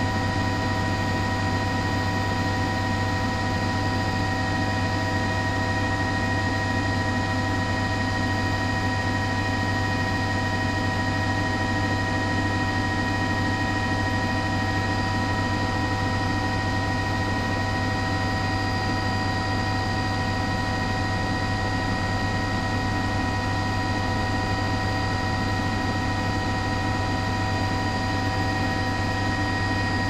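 Steady mechanical drone, like an engine running, with several constant whining tones over a low hum; it does not change at all.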